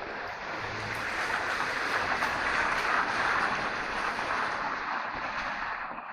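A car passing on a rain-wet road: tyre hiss that swells to a peak about halfway through and fades away near the end.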